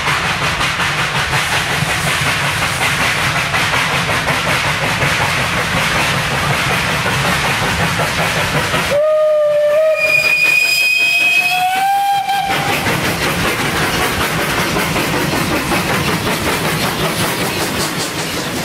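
Narrow-gauge class 298 steam locomotives running towards and past the listener with a rapid exhaust beat and hissing steam. About nine seconds in, a steam whistle sounds for about three and a half seconds, several tones at once, rising slightly in pitch near its end.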